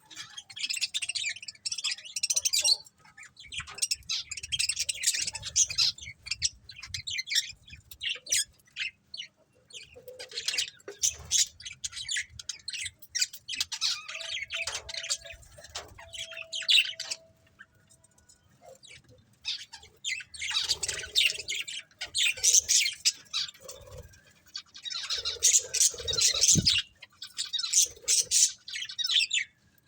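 A flock of budgerigars chirping and chattering in flurries of quick high calls, with some harsher squawks and short lulls between flurries.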